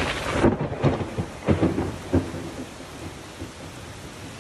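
Heavy rain pouring down, with several surges of thunder in the first two seconds or so, then steady rain.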